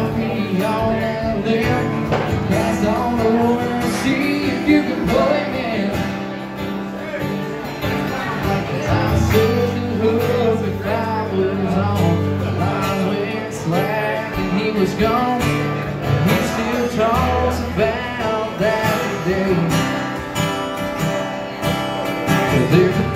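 Live acoustic guitar playing with a man singing along, one performer with guitar and voice.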